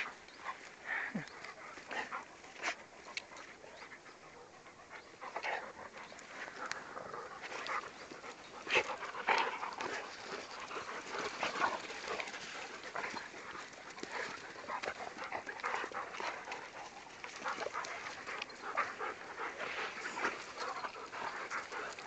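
Dogs panting close to the microphone, with many short irregular noises as they jostle around.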